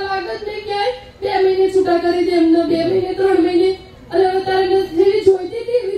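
A single high-pitched voice singing in long held notes, breaking off briefly about a second in and again just before four seconds.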